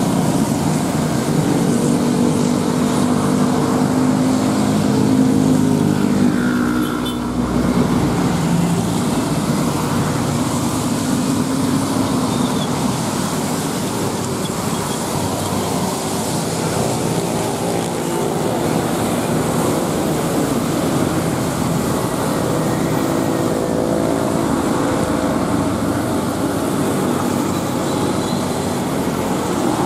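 Road traffic on a wet road: motorcycles, cars and buses passing, with engines running and tyres hissing on the wet surface. A deeper engine drone is strongest over the first several seconds and again in the second half, with a short dip in loudness about seven seconds in.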